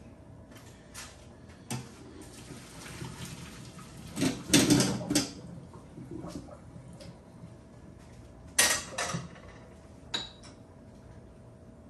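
Pots, pans and utensils clattering in a few separate bursts of knocks, loudest about four to five seconds in and again a little before nine seconds.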